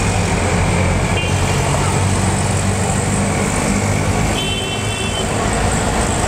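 Road traffic: a steady rumble of engines with a vehicle horn tooting briefly about a second in and again, longer, at about four and a half seconds.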